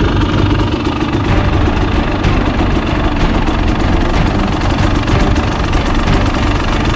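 2022 Husqvarna TE300i's single-cylinder two-stroke engine idling steadily.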